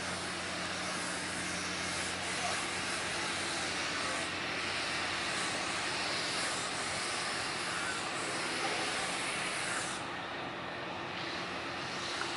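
The fishing vessel Northwestern's diesel engine running under way, heard as a steady low drone under a steady hiss.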